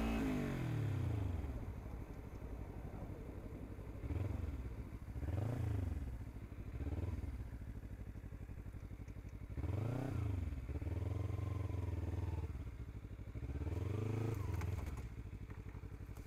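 Kawasaki Ninja 300's parallel-twin engine running, its revs rising and falling in short throttle blips about eight times, with a few seconds of steady running in between.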